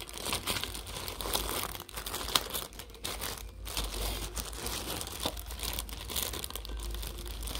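Clear plastic bag crinkling and rustling in irregular crackles as a hand rummages through it for a piece.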